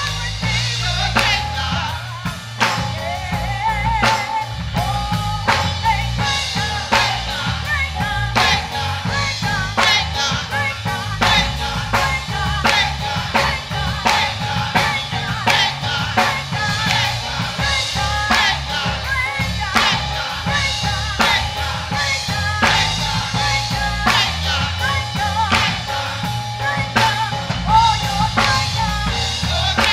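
Live church music: a drum kit keeping a steady beat over bass, with voices singing.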